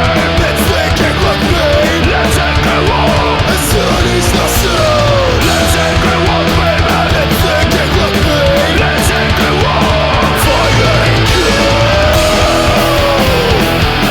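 Studio recording of a loud punk rock'n'roll song: distorted electric guitars, bass and drums, with a melody line bending up and down in pitch over the rhythm.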